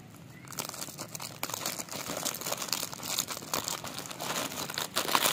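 Crinkling of small foil-lined plastic snack packets being rummaged and handled by hand, a dense run of crackles that starts about half a second in and is loudest near the end.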